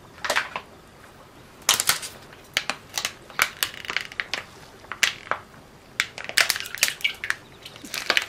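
Silicone spatula scraping and tapping against the sides and bottom of a small stainless-steel saucepan while stirring milk tea to dissolve gelatin: irregular sharp scrapes and clicks, several a second in clusters.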